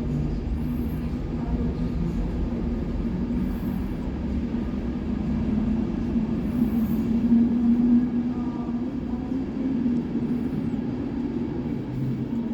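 Electric train running past: a steady rumble with a low hum, growing a little louder past the middle.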